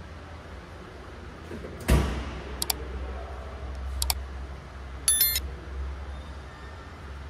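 Sound effects of an on-screen like/subscribe button animation: a knock, two pairs of sharp mouse-click sounds, then a short bright bell ding, over a steady low workshop hum.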